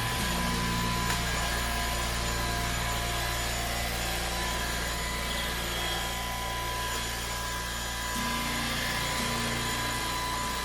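VOSFEEL Z11 cordless stick vacuum cleaner running steadily: a constant rush of airflow with a steady high motor whine.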